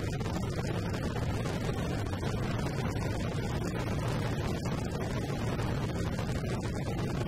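Steady rumble of a motorcycle under way, its engine running mixed with wind noise on the bike-mounted camera's microphone.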